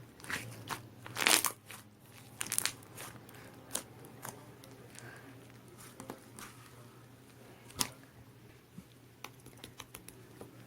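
Grey 'cement' slime being squeezed and pressed by hand, giving irregular crackles and sharp clicks. The loudest crackle comes about a second in.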